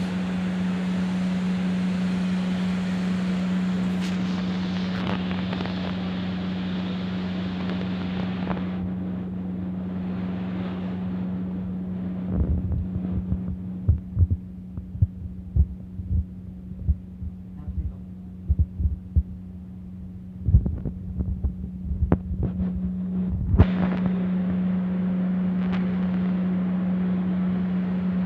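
A steady low hum with a hiss of background noise. The hiss drops away about a third of the way in and returns near the end, and in between come a run of muffled low thumps and bumps.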